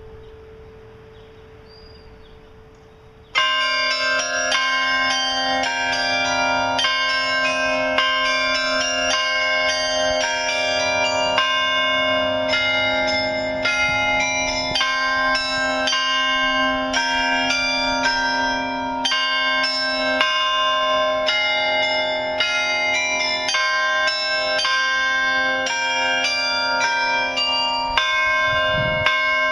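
Bells of the New Ulm Glockenspiel clock-tower carillon playing a tune, notes struck quickly one after another. They start suddenly about three seconds in, after a few seconds of faint lingering tones.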